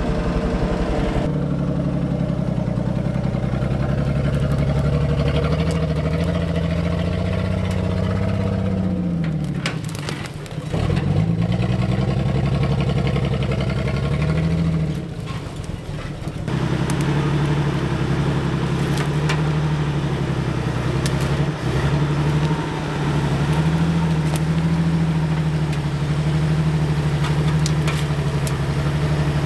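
Old 4x4 pickup truck's engine running while driving off-road, its revs dropping and picking back up about a third of the way in and again about halfway through.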